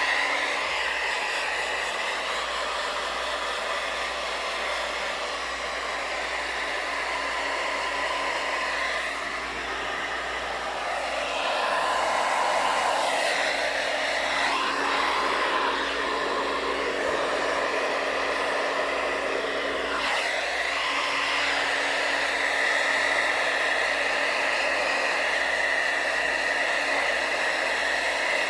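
Hand-held hair dryer blowing steadily while drying a dog's fur, a rushing air noise with a high whine; its sound shifts for a few seconds about halfway through and changes again soon after as the dryer is moved.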